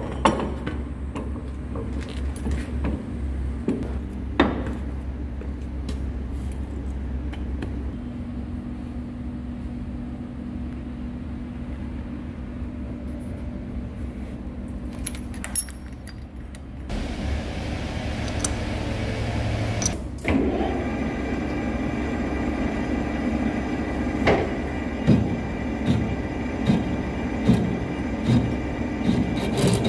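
Metal lathe running while machining a steel hydraulic cylinder barrel, a steady low hum with scattered sharp metallic clinks. The sound changes abruptly twice, to a hiss about 17 seconds in and to a busier running sound about 20 seconds in, with metal clanking about once a second near the end.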